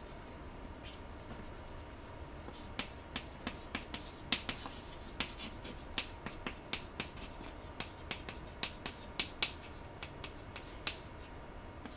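Chalk writing on a chalkboard: an irregular run of short, sharp taps and brief scratches as capital letters are printed stroke by stroke.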